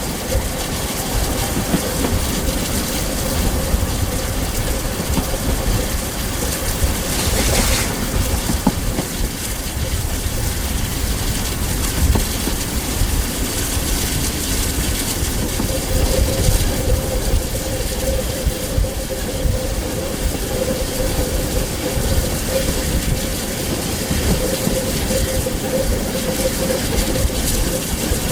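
Steam-hauled heritage train running on the rails: a steady rumble with wheels clicking over the track. A faint steady ringing tone runs through it, and there is a short burst of noise about seven seconds in.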